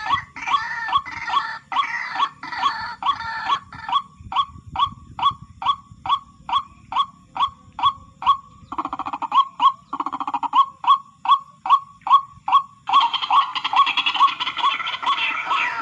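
White-breasted waterhen calling: a fast, very regular run of short hooked call notes, about three a second, growing denser and fuller in the last few seconds.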